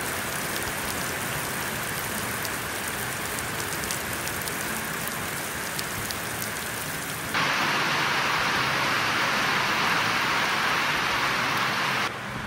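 Steady rain falling, with the taps of single drops in it. About seven seconds in it abruptly turns louder and hissier, as heavier rain, and falls back shortly before the end.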